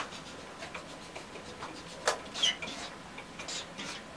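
Dry-erase marker drawing short dashed strokes on a whiteboard: light taps and brief squeaks of the felt tip on the board, with one sharper tap about two seconds in.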